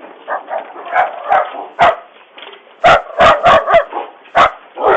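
A dog barking repeatedly, about nine sharp, loud barks in quick groups, harsh and clipped as heard through a doorbell camera's microphone.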